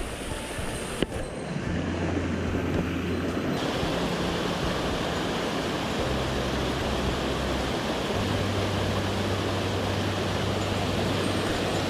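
Steady rush of a mountain stream running high after rain, with low notes of background music underneath. A single sharp click comes about a second in.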